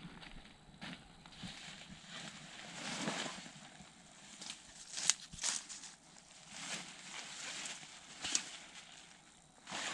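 Intermittent rustling with a few sharp clicks, the sharpest about five seconds in and again a little past eight seconds.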